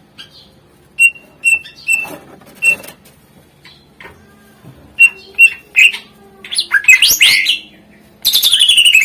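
Cucak ijo (green leafbird) singing: spaced sharp chip notes, then quick sweeping whistled phrases, then near the end a loud rapid trill that falls in pitch.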